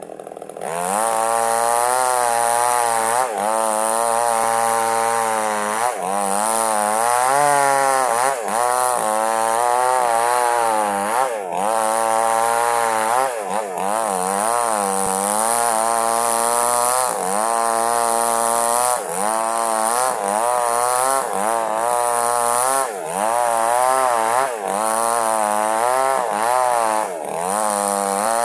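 Small chainsaw ripping a log lengthwise to split it in two. The engine revs up about a second in and then runs under load, its pitch wavering up and down about once a second with a few brief dips.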